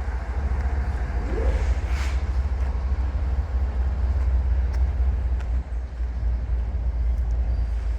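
Steady low rumble of a train, with a few faint clicks and a brief rising squeal about a second and a half in.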